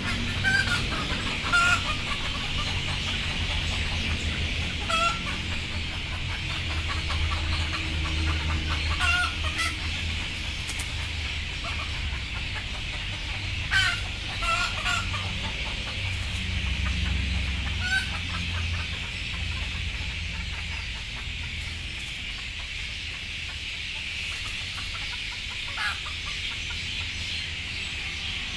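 Chickens settling to roost, giving short, scattered clucks over a steady background hiss and low rumble.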